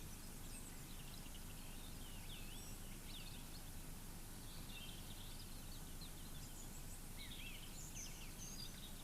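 Several birds chirping faintly over a steady low background noise.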